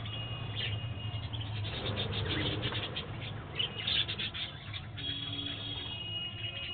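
A flock of budgerigars chirping and chattering, with a dense run of rapid chirps and then longer held whistling notes near the end, over a steady low hum.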